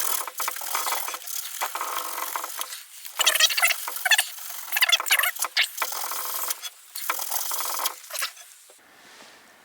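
Hand scrubbing of the flywheel magnet on a Tecumseh H35 engine with an abrasive, a run of irregular scrubbing strokes that stops shortly before the end; the magnet face is being cleaned up for the new ignition coil.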